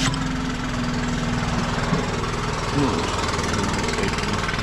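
Stump grinder's petrol engine running at a steady speed, just after it comes up to speed.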